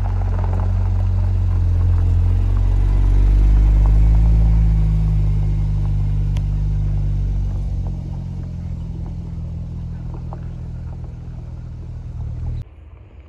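Porsche 911 Turbo S's twin-turbo flat-six engine running as the car pulls slowly away, a low rumble that swells and rises slightly a few seconds in, then fades as the car moves off. The sound cuts off abruptly near the end.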